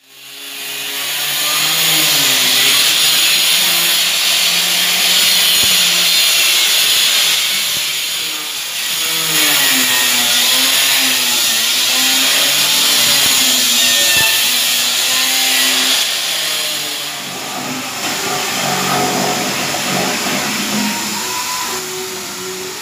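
Electric angle grinder with a cutting disc cutting into a marble slab: a loud grinding hiss over a motor whine whose pitch wavers up and down as the disc bites into the stone. It fades in at the start and eases off somewhat in the second half.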